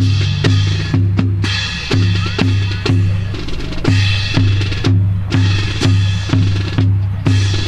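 Marching drum cadence: a bass drum beating steadily about twice a second, with snare drum strokes and sharp rim clicks between the beats.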